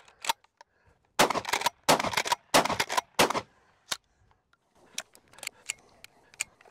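Rock Island All Gen 12 pump-action 12-gauge shotgun fired four times in quick succession, each blast followed by a short echo. Then a string of small sharp clicks as shells are pushed into the magazine tube.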